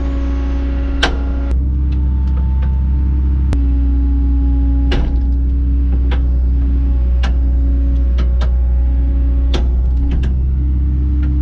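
Kobelco SK120 excavator running under load as it repositions: a steady, loud diesel hum with a hydraulic whine that shifts pitch every few seconds, and sharp metallic clanks and clicks scattered throughout.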